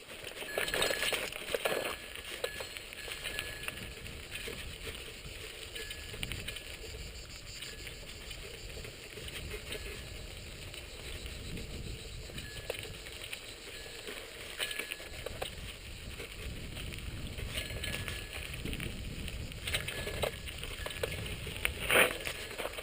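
Bicycle ridden along an unpaved track: steady rumble of tyres on the rough ground with scattered rattles and clicks, and one sharp knock near the end.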